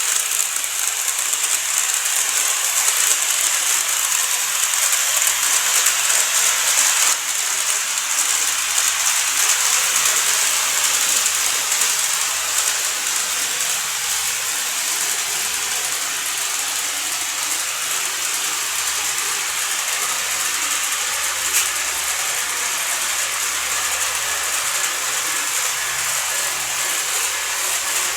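N-gauge model train running on its track: a steady, high whirring hiss from the small motor and the wheels on the rails, which shifts slightly about seven seconds in.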